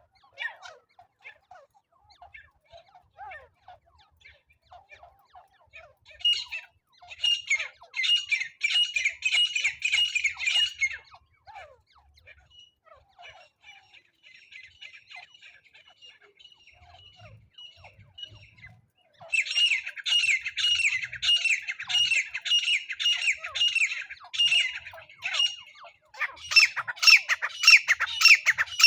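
Francolin (teetar) calling: loud bouts of quickly repeated, harsh, falling notes, three bouts in all, with fainter scattered calls in the pauses between.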